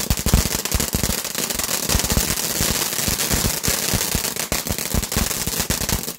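A firework going off in a fast, continuous run of sharp cracks and bangs, many each second, with no pause.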